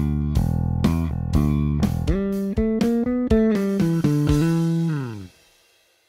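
Electric bass played fingerstyle on DR Pure Blues nickel-plated strings: a groove with a fill of quick notes. The last note slides down in pitch and dies away about five seconds in, leaving near silence.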